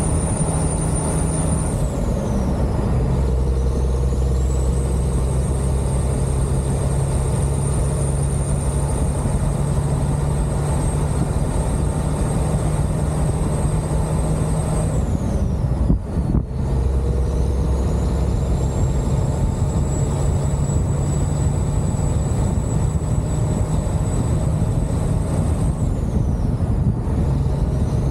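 Detroit diesel engine of a semi truck running on the road, with a high whine that falls away and climbs back three times as the engine eases off and pulls again.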